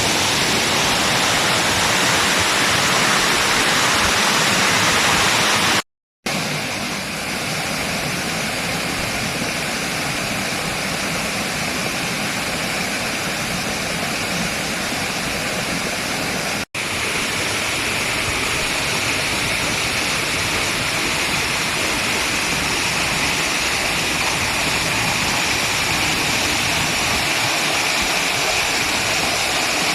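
Waterfall pouring steadily: a loud, even rush of falling water. The sound cuts out completely for a moment about six seconds in, and again for an instant near seventeen seconds.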